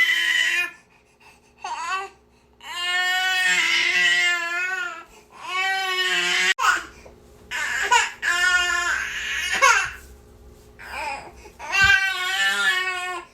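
Infant crying: a string of wailing cries, each a second or two long, broken by short catches of breath.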